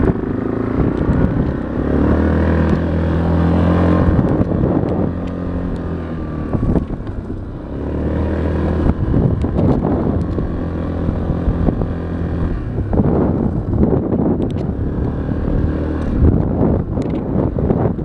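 Four-wheeler (ATV) engine running as it is driven across a field, its note dipping briefly about seven seconds in and growing more uneven later, with wind buffeting the microphone.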